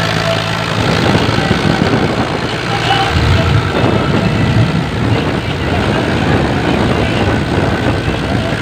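Powertrac Euro 50 tractor's three-cylinder diesel engine running under heavy load as it hauls a fully loaded dual-tyre trolley through sand.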